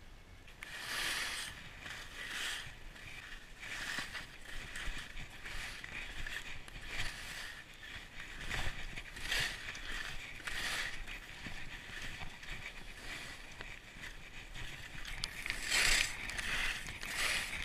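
Skis carving turns on snow, a run of swishing scrapes about one every second or so, starting about a second in.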